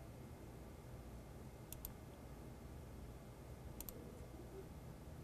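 Faint computer-mouse clicks: two quick double clicks about two seconds apart, over a low steady hum of room tone.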